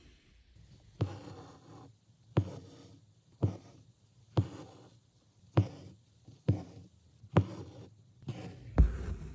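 Embroidery needle stitching through cotton fabric stretched taut in a wooden hoop: about nine sharp taps, roughly one a second, as the needle pierces the drum-tight fabric, each followed by a brief rasp of floss being drawn through. Lazy daisy and back stitches for a leaf.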